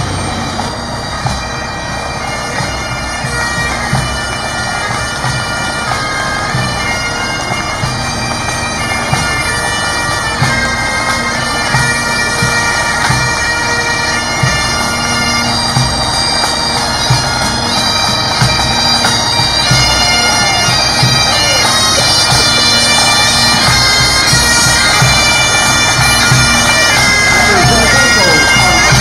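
Bagpipes playing a tune over a steady drone, growing gradually louder.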